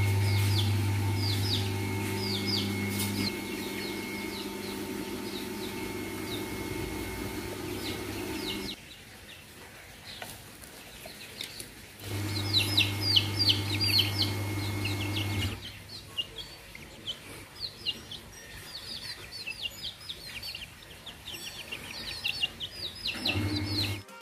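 Young bantam chicks peeping over and over in short, high, falling notes. In some stretches a low, steady hum plays under them and is the loudest sound.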